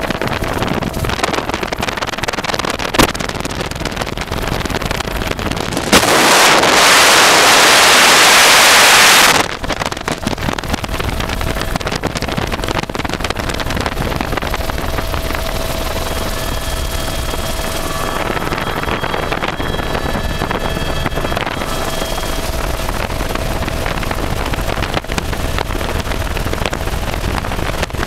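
Helicopter in flight heard from an open doorway: steady engine and rotor noise with wind rushing over the microphone. About six seconds in, the wind swells into a loud hiss for about three seconds, then drops back.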